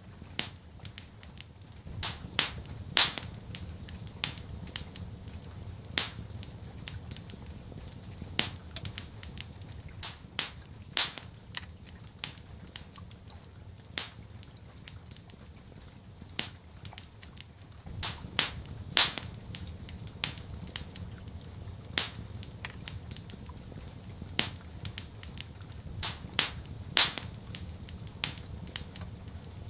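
Wood fire in a fireplace crackling, with irregular sharp pops scattered throughout over a steady low rumble.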